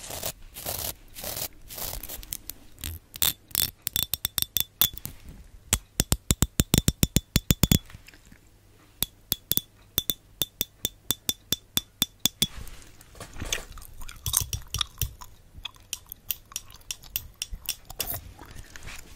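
A small comb with fine metal teeth scratched against a microphone grille and its teeth plucked with a fingernail, giving runs of sharp clicks with a faint metallic ring. The clicks are fastest, about ten a second, around the middle.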